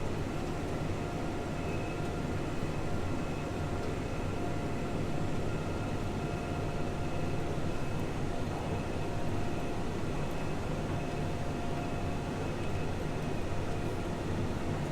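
Case IH tractor running steadily under load while pulling two square balers, a constant machine drone with a faint steady whine.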